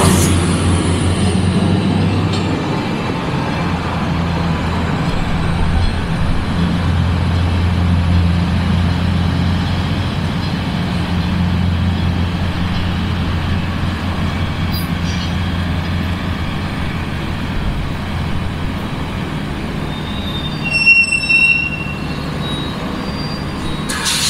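A Stadler GTW diesel-electric commuter train pulls away and recedes down the track; its steady low engine drone slowly fades. A brief high squeal sounds about 21 seconds in.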